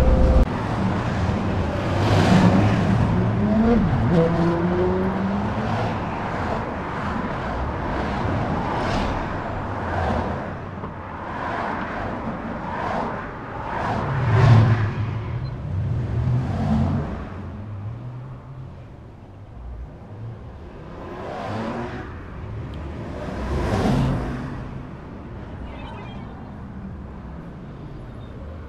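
Road traffic on a city street: cars passing one after another, each a rush of engine and tyre noise that swells and fades. A vehicle engine rises in pitch, accelerating, about two to five seconds in.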